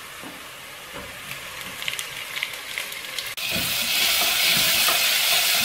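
Sliced onions frying in oil in a nonstick pot, sizzling softly with a few light scrapes of a wooden spatula. About three and a half seconds in the sizzle turns suddenly much louder as the chopped tomato fries, with low knocks of stirring.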